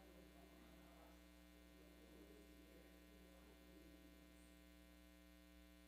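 Near silence with a steady electrical mains hum in the sound system.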